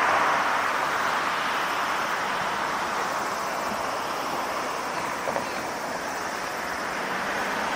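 Airbus A330-300's Rolls-Royce Trent 700 jet engines running at takeoff power during the takeoff roll: a steady rushing jet roar that eases a little midway and swells again near the end.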